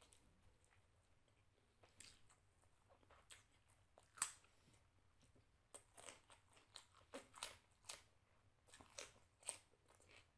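A person chewing and biting food close to the microphone, with sharp, irregular crunches. The loudest crunch comes about four seconds in, and clusters follow in the second half.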